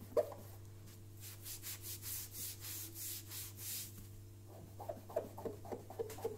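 Hand and wet scouring sponge rubbing the plinth of a Technics SL-1210MK2 turntable to soak its stickers loose. About three quick hissing strokes a second, then from about halfway shorter, lower scrapes.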